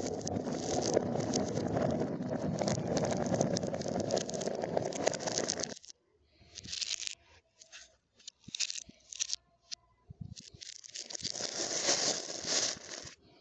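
Plastic bag rustling and crinkling as it is handled, broken up in the middle by a few short clicks and rattles of glass marbles held in a hand. The bag rustling starts again near the end.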